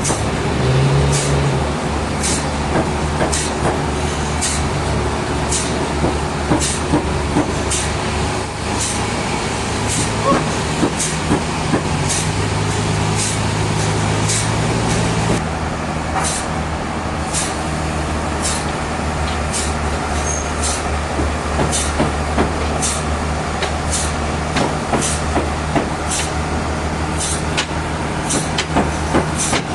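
Sawmill machinery running: a steady motor hum with a regular sharp click about twice a second. The hum's tone shifts about halfway through.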